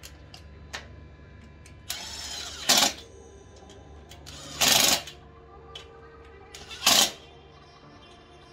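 Cordless impact driver hammering bolts inside a manual gearbox's bell housing, in three short bursts about two seconds apart.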